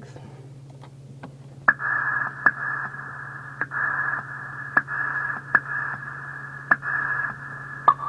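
Radio-static-like hiss that cuts in about two seconds in and keeps switching on and off with sharp clicks, over a steady low hum.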